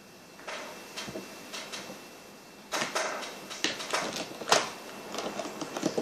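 Small objects being handled on a tabletop: a run of short clicks, knocks and scrapes that starts about half a second in and gets busier and louder about two and a half seconds in.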